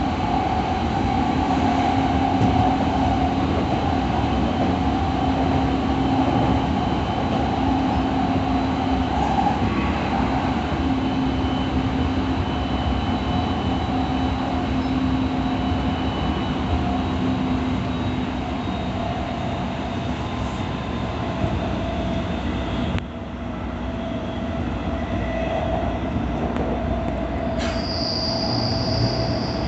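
E217 series electric train running: a steady rumble of wheels on rail with a humming traction-motor tone and some wheel squeal. About three-quarters of the way through, the rumble drops suddenly, and near the end there is a brief high squeal.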